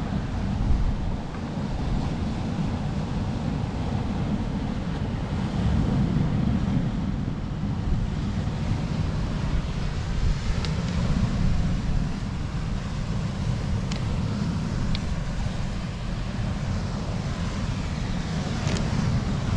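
Wind buffeting the microphone as a steady low rumble, with the wash of surf on a stony seashore underneath. A few faint clicks come in the second half.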